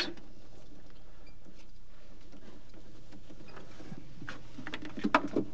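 A few light clicks and taps near the end, from the wire connectors of a refrigerator's defrost heaters being handled and plugged back together. A low steady hum runs underneath.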